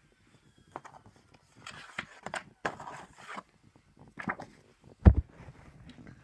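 Cardboard packaging and a softcover art book being handled: rustling and scraping as the book is slid out of its box, with scattered clicks, then a sharp thump about five seconds in.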